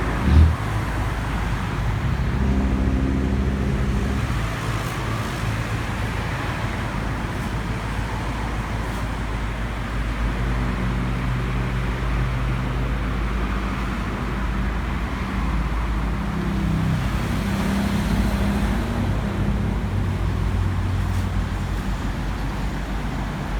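Motor vehicle engines running amid road traffic noise, a steady rumble whose low hum shifts in pitch now and then.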